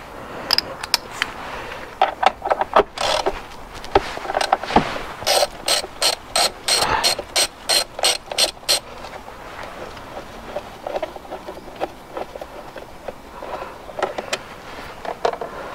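Socket ratchet clicking as a bolt is wound out: scattered clicks at first, then a steady run of about four clicks a second for roughly three seconds, after which it goes quieter with only the odd tool knock.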